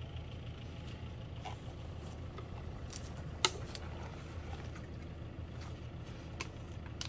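Scattered rustles and small clicks as dolomite powder is scooped by hand from a woven plastic sack, with one sharp click about three and a half seconds in, over a steady low rumble.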